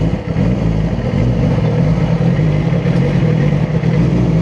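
Yamaha R6's inline-four engine running steadily after being push-started on a failing charging system.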